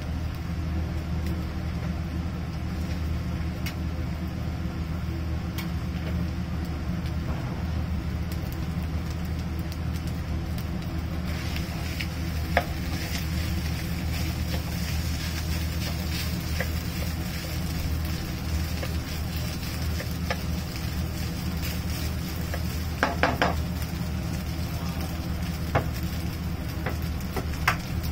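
Food sizzling in a pan, the hiss coming in about a third of the way through, over a steady low hum. A few short clinks of utensils or dishes come near the middle and end.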